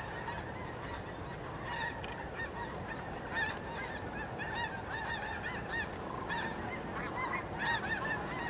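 A flock of geese calling: many short, arched honks repeating and overlapping throughout.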